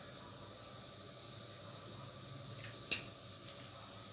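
Faint steady hiss with one sharp plastic click about three seconds in, from handling the bottle of nannari syrup.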